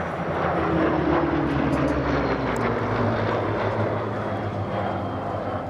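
Piston-engined WW2 warbird flying past overhead, its propeller engine note dropping in pitch as it goes by.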